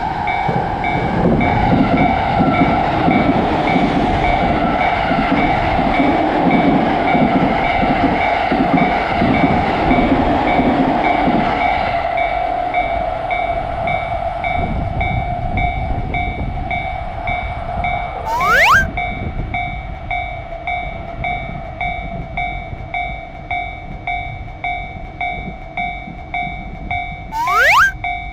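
Japanese railroad crossing alarm ringing with a steady, repeating clang while a train runs past for about the first twelve seconds. Two short rising whistles sound, one about two-thirds of the way in and one near the end.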